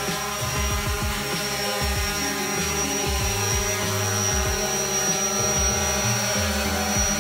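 DJI Phantom 4 Pro quadcopter hovering close by, its four motors and propellers giving a steady buzzing whine of several tones with a thin high tone on top. The lower tones shift in small steps as the motors adjust speed to hold the drone in the air.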